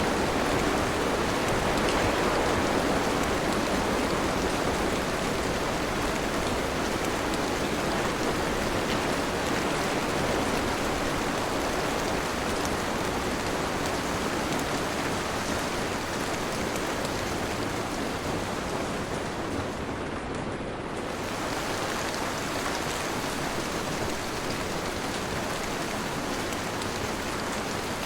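Steady, dense rainfall hissing without a break, with a brief dulling of the hiss about two-thirds of the way through.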